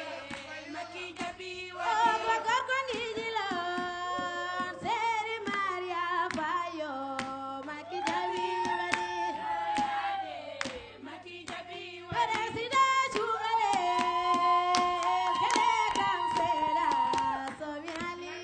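A woman singing a Wolof griot praise song, holding long wavering notes that slide between pitches, over frequent sharp percussive strikes.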